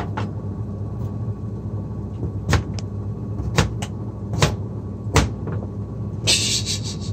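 Kitchen knife cutting carrot on a cutting board: slow, irregular knocks of the blade striking the board, about one or two a second, over a steady low hum. A short hiss about six seconds in.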